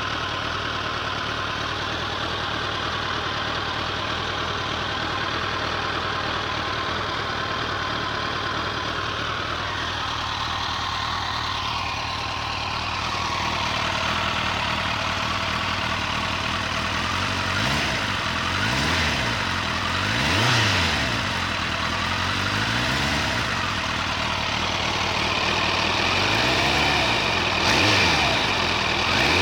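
Kawasaki GPZ900R inline-four engine idling steadily, then revved briefly several times in the second half, its pitch rising and falling with each throttle blip. This is the noise that comes from the engine after a ZZR1100 chain tensioner was fitted and set one tooth up.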